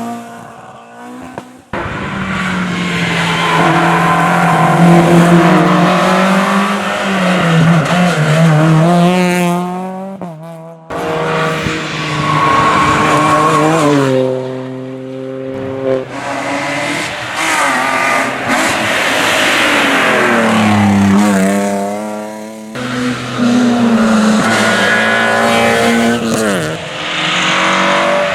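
Rally cars at full throttle on a special stage, engines revving hard and rising and falling in pitch through gear changes and braking for corners. Several passes are cut together, and the sound changes abruptly a few times.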